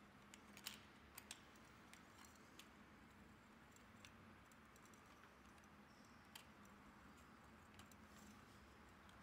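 Near silence: faint room tone with a low hum and a few scattered small clicks, the clearest about a second in.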